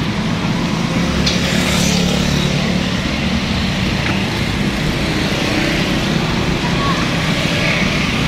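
Road traffic: the steady low hum of a motor vehicle engine running close by, loudest in the first few seconds, over a constant roadside noise.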